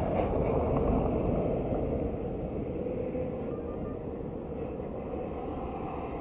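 A car driving past on a gravel road, a low rumbling noise that slowly fades away over the first few seconds.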